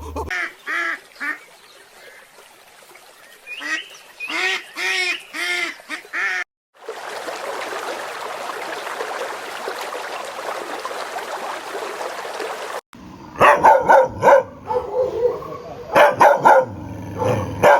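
Waterfowl honking in short runs of repeated calls, then about six seconds of a steady hiss, then loud, rapid animal calls near the end.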